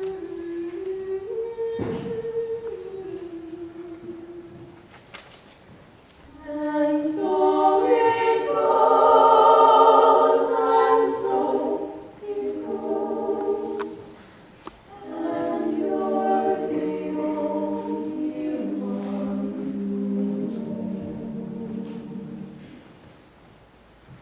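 Small group of female voices singing a cappella into microphones: one voice alone for the first few seconds, then several voices joining in close harmony. The closing phrases die away near the end.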